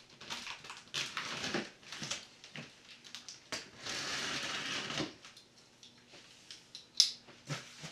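Large cardboard shipping box being opened by hand: scattered rustles and clicks of cardboard and packing tape, a longer scrape about four seconds in, and a sharp click near the end.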